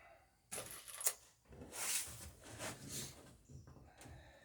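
Quiet handling noises: soft rustling swells, with a sharp click about a second in and another near the end.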